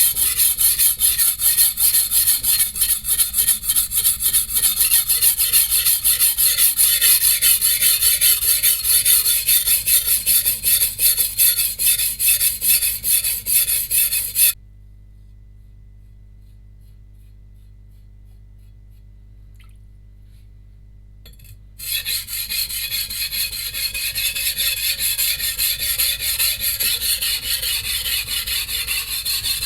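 A steel cleaver blade is ground on a coarse 180-grit whetstone in rapid back-and-forth strokes, with a gritty rasping scrape; this is the coarse grinding that takes out chips in the edge. About halfway through the strokes stop abruptly for several seconds, then resume.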